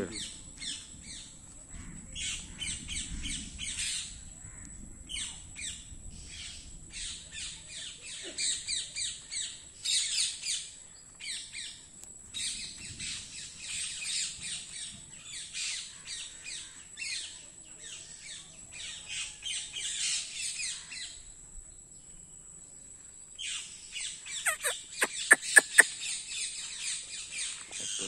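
A flock of parrots squawking and chattering in a tree, a constant run of short, harsh calls. About three-quarters of the way through comes a quick run of half a dozen louder squawks.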